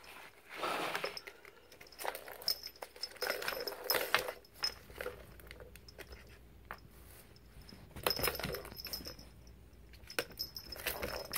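Small plastic balls rolling and rattling around the tracks of a three-tier plastic cat ball-track toy as a cat bats them, in irregular spells of clicks and knocks with quieter gaps between.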